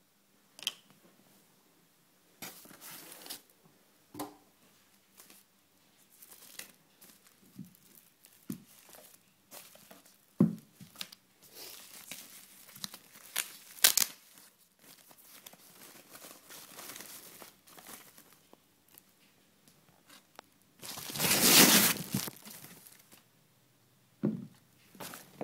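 Thin white packing wrap being peeled and pulled off a boxed stereo unit, in irregular crinkling and tearing rustles with a few sharp knocks of handling. The loudest, longest rustle, about a second and a half of it, comes near the end.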